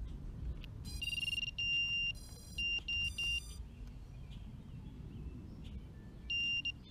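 Electronic beeps at one steady high pitch from the SWAGDRONE F-210 quadcopter's electronics as it is powered up and armed for flight: a run of short and longer beeps in the first half, then a single beep near the end.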